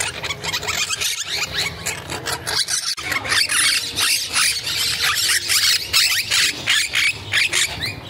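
A crowd of parrots calling at once: many short, high-pitched squeals and chirps overlapping without a break, growing denser about three seconds in.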